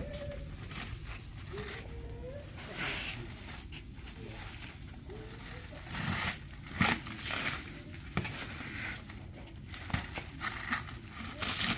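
Plastic packaging crinkling and tearing in irregular bursts as a new electric motorbike is unwrapped, with a few sharp clicks.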